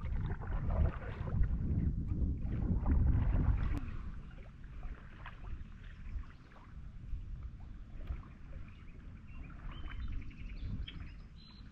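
Kayak paddling in shallow water: paddle strokes splashing and dripping, louder in the first few seconds. Birds chirp briefly near the end.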